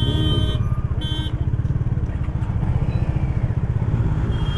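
Motor vehicle engine running with a low, even pulse, with steady horn-like tones sounding in the first second or so.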